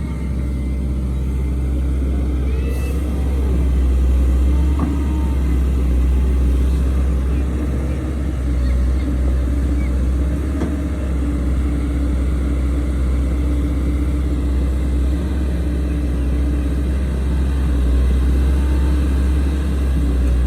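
Heavy diesel engine of construction machinery running steadily with a deep drone, swelling slightly in loudness now and then as it works.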